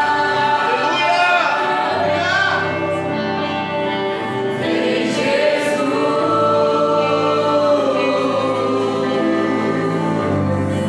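Christian worship music with several voices singing together, holding long notes.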